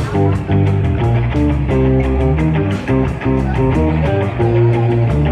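Live rock band playing a song: a guitar riff over bass and drums with a steady beat.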